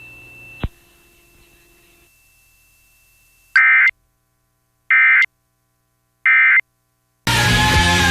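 Three short bursts of Emergency Alert System digital data tones, the end-of-message code that closes a weekly test, each about a third of a second long and a little over a second apart. Near the end, music starts loudly as normal programming resumes.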